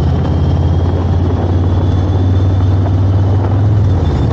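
Motorcycle engine running steadily while riding at an even speed, a low, even rumble heard from the rider's seat.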